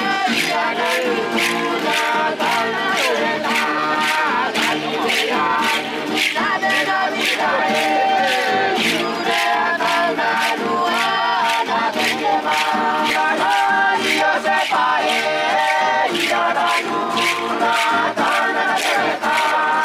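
A group of villagers chanting and singing together in unison, with a steady beat of about two strikes a second.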